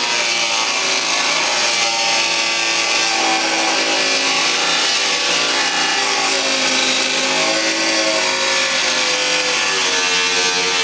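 Angle grinder with a diamond cutting wheel slicing through a fiberglass boat seat base, running continuously with a grinding hiss; its motor whine wavers up and down in pitch as the blade is pushed along the cut.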